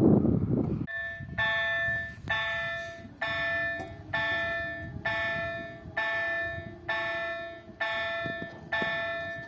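Level-crossing warning bell ringing, one ringing stroke about every second. It starts about a second in, just as a loud rumbling noise cuts off.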